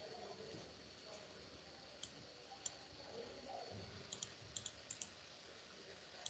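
Computer mouse clicking: a single click about two seconds in, another shortly after, then several quick pairs of clicks between four and five seconds in, over faint background hiss.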